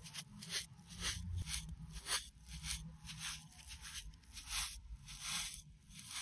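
Brown kinetic sand mixed with white instant snow being pressed and scraped with a rounded wooden pestle, giving a run of soft crunching, grainy strokes, about two a second.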